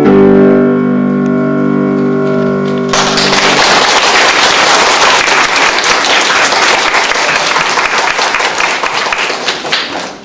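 A boys' choir holds its final chord for about three seconds, then the audience breaks into applause that dies away near the end.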